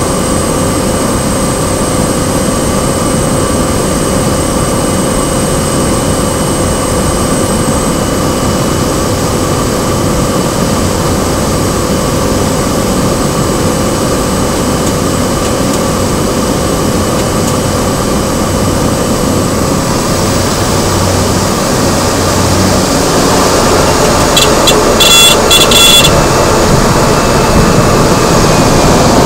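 Cessna 208 Grand Caravan's Pratt & Whitney PT6A turboprop engine and propeller heard from inside the cabin during the final approach: a loud, steady drone with a high, steady whine. Near the end the noise grows louder, with a short burst of rattling clicks and a falling whine, as the aircraft comes down onto the runway.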